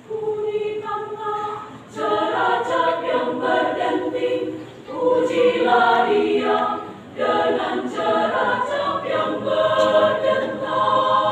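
Women's choir singing unaccompanied in harmony, in phrases with short breaks between them.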